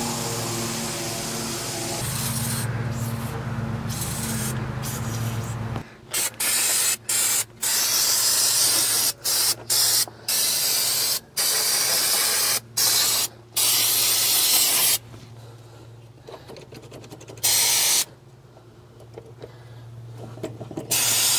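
Aerosol can sprayed onto a seized carburetor choke to free it up: one long steady spray of about six seconds, then a string of short bursts, with a longer pause near the end broken by one more burst.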